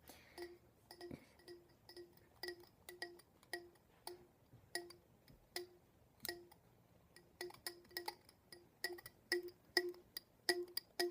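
A part inside a toy Nerf blaster plucked over and over like a string, each pluck a short twang at the same pitch. The plucks come irregularly, about two a second, and faster near the end.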